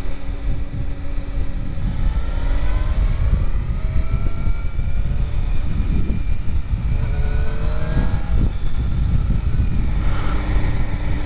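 Suzuki GSX-R 750 K4's inline-four engine being ridden, its pitch climbing under acceleration twice and then holding steadier, over a heavy rush of wind noise.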